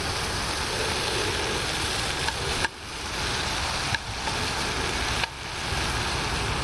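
Smoked bacon sizzling steadily in a frying pan on a gas camping stove, with a few sharp clicks as metal tongs turn the rashers.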